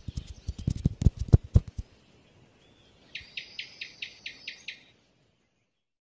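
Lizard sound effects: quick, irregular skittering taps of little feet for the first two seconds, then a fast trill of about eight short, high chirps lasting about a second and a half, ending in silence.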